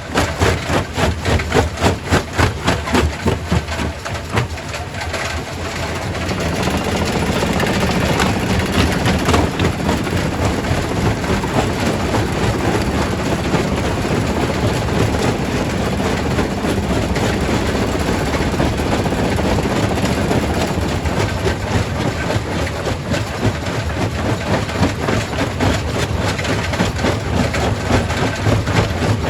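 Primary rock crusher at a quarry running with a heavy machine rumble, and rock clattering and cracking in quick, dense knocks during the first few seconds and again near the end.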